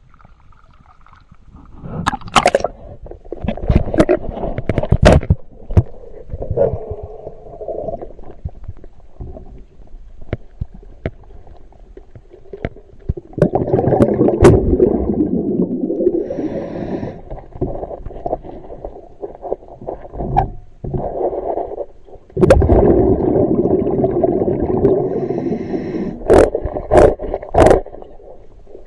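Muffled water sloshing and rumbling in uneven surges, with scattered sharp knocks and clicks, several in quick succession near the end.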